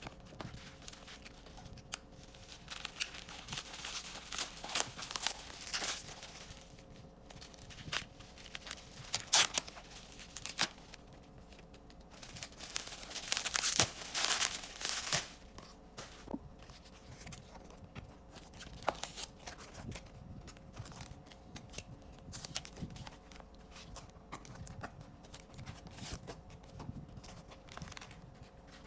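Card packaging being torn open and crinkled by hand, in several stretches of rustling with sharp clicks and snaps between them.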